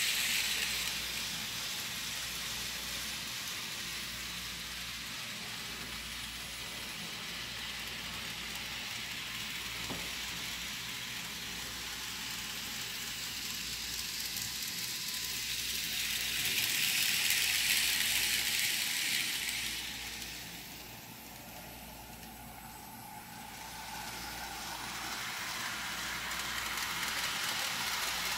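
N scale Kato model freight train running on Kato Unitrack: a steady, hissing whir of the small motor and wheels on the rails. It grows louder for a few seconds past the middle, then quietens sharply before picking up again.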